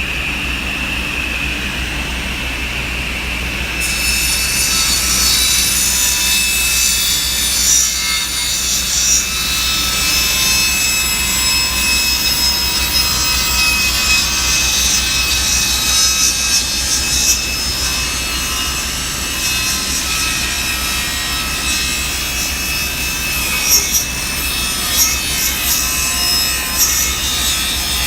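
Table saw running and ripping a wooden board against the fence. The cut begins about four seconds in and goes on with small surges as the board is fed through the blade.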